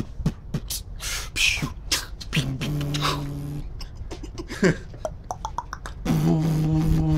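Human beatboxing by a street beatboxer: a quick run of sharp kick- and snare-like mouth clicks and hisses. A hummed low bass note joins about two and a half seconds in, and again near the end.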